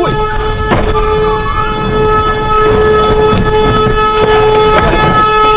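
Locomotive horn held in one long, steady, loud blast as a train strikes a car at a level crossing, with a sharp crash of impact about a second in and rough rumbling noise throughout.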